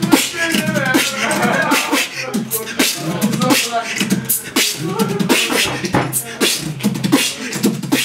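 A person beatboxing: a quick run of mouth clicks and percussive hits, several a second, with voiced sounds between them.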